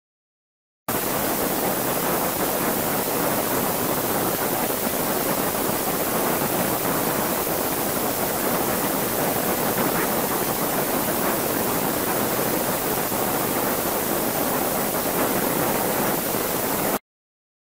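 A steady, even rushing hiss, like running water or static noise, that starts abruptly about a second in and cuts off abruptly near the end.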